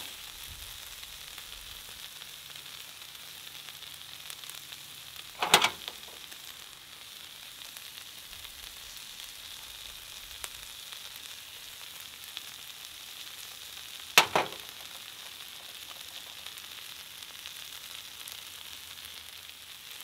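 Shredded hash browns and onions and peppers sizzling steadily on a Blackstone 17-inch griddle, with two sharp clinks of a metal spatula against the griddle, about five and a half and fourteen seconds in.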